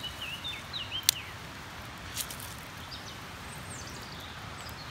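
Small campfire of sticks crackling under the grill, with a few sharp pops: the loudest about a second in, another about two seconds in. A bird chirps during the first second, over steady outdoor background noise.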